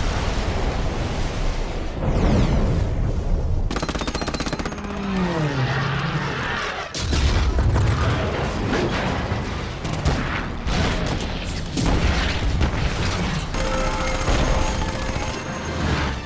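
Movie battle and crash sound effects: explosions and rapid machine-gun fire over a film score, with a falling whine about five seconds in.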